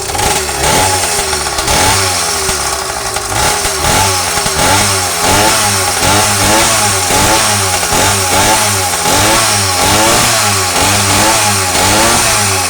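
Small two-stroke YD100 motorized-bicycle engine revved over and over in quick throttle blips, its pitch rising and falling in rapid succession.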